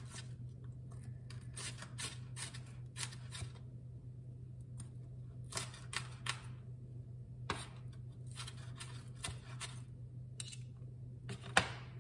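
Chef's knife chopping vegetables on a wooden cutting board: short runs of quick taps with pauses between them, and one sharper strike near the end. A steady low hum runs underneath.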